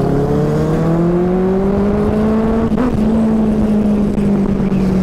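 Motorcycle engine pulling under acceleration, its note rising steadily. About three seconds in there is a short break, like a gear change, after which the note holds steady.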